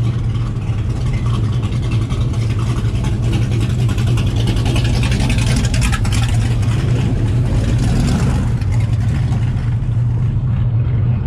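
Car engines running steadily at low speed, a constant low hum, with a rushing hiss that swells in the middle and fades near the end.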